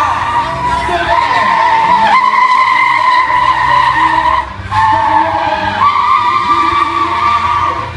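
Toyota GT86 drifting: its tyres squeal in a steady high tone over the running engine. The squeal breaks off briefly about halfway through, then picks up again.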